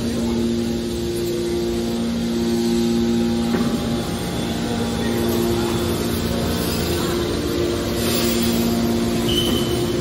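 Hydraulic scrap metal baler's electric motors and hydraulic pump running, a steady machine hum with two steady tones that drop out briefly a few times.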